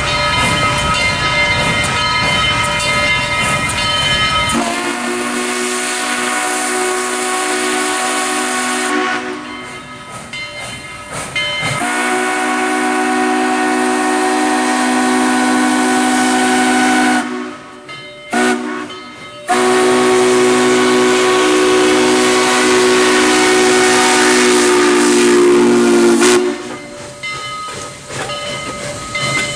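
Southern Railway 4501, a 2-8-2 steam locomotive, blowing its chime whistle in the grade-crossing pattern as it approaches: long, long, short, long. The last long blast ends just before the engine reaches the crossing, over the steady ringing of the crossing signal's bell and the noise of the oncoming train.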